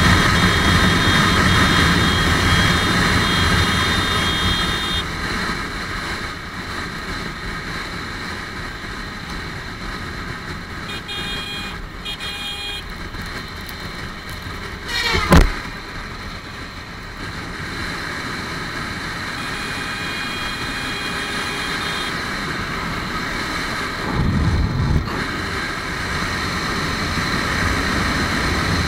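Wind rushing over the microphone with a Lifan KPR150 motorcycle's single-cylinder engine running at high speed. About halfway through there is a short loud whoosh as it passes close to a truck, and near the end a brief low rumble.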